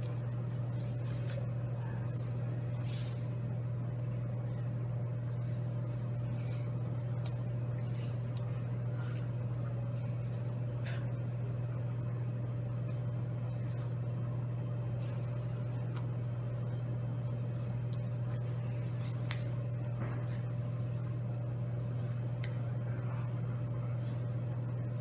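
Steady low electrical or ventilation hum of room background noise, with a fainter steady higher tone above it and scattered faint clicks and rustles.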